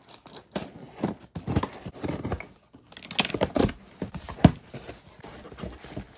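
Cardboard shipping box being opened and unpacked by hand: flaps and packaging rustling, with irregular knocks of items against the cardboard, the loudest about four and a half seconds in.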